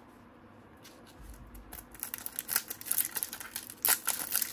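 Foil wrapper of a 1994-95 Topps Finest card pack crinkling and tearing as it is pulled open by hand, starting about halfway through with dense, irregular crackles.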